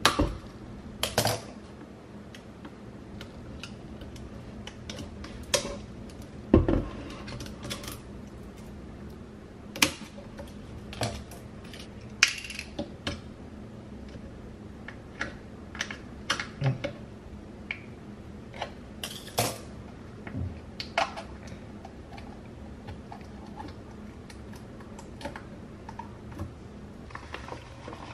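Irregular clicks and taps of scissors working at the plastic cap and seal of a plastic disinfectant jug standing in a stainless steel sink. Near the end, rubber gloves rustle as they are pulled on.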